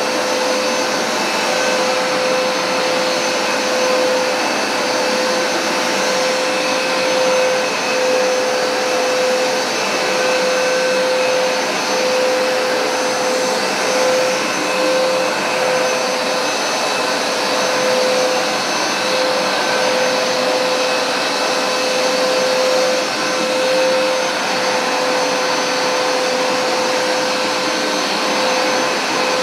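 Hoover SmartWash Pet upright carpet cleaner running steadily, its motor giving a constant whine with one strong steady tone over a dense rushing noise, the level swelling slightly every couple of seconds.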